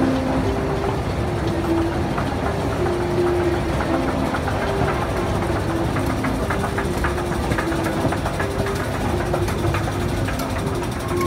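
Metro station escalator ride: a steady mechanical rumble with a run of short, low tones at changing pitches and a patter of clicks in the middle.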